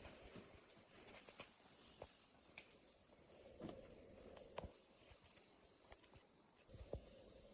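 Near silence: faint, irregular footsteps and small knocks over a steady faint hiss.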